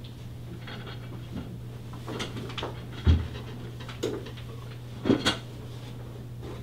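Movement noise of people sitting down at a conference table: a handful of rustles and knocks, the loudest a low thump about three seconds in and a quick double knock around five seconds, over a steady low hum.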